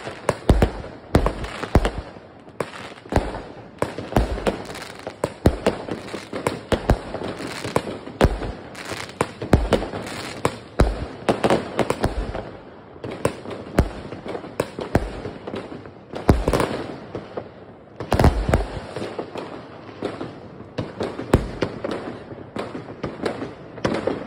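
Many fireworks going off at once: rockets bursting overhead and firecrackers, a dense string of bangs and cracks, several a second, with no break.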